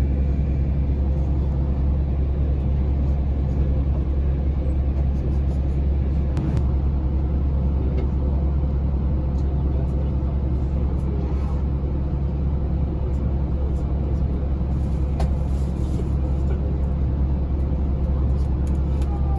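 Steady low hum and rumble inside a Yui Rail monorail car, even throughout with no sudden sounds.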